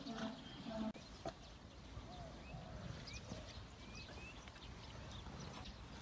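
Faint outdoor background with small birds chirping now and then and a couple of light knocks. A low, held pitched tone stops about a second in.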